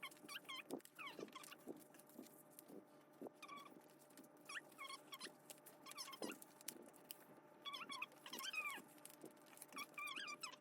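A pet's high, wavering squeaky calls in short clusters, with a few faint clicks between them.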